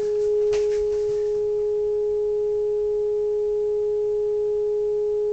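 Steady single-pitch test tone with a fainter tone an octave above it, played through the Uniden 2020 transceiver's speaker: the signal generator's modulated test signal being received while the RF preamp coil is peaked for alignment. It swells slightly about half a second in, then holds steady, with a few faint clicks in the first second.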